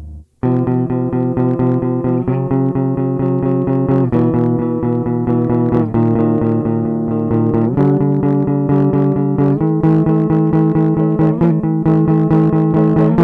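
Guitar music: chords picked in fast, even repeated notes, the chord changing about every two seconds, after a brief break just after the start.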